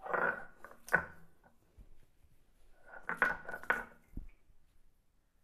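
Stone roller (batta) knocking and scraping on a stone grinding slab (sil-batta) over peeled garlic cloves, as the garlic is about to be ground into paste. The sharp knocks come in two short bouts, near the start and about three seconds in.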